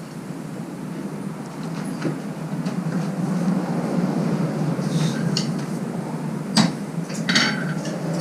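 Blacksmith's forge blower running with a rumbling whir that grows steadily louder, fanning the coal fire up to heat. A few light metal clinks come near the end.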